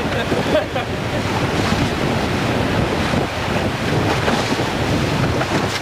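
Whitewater rapids rushing steadily around a raft, with wind buffeting the microphone.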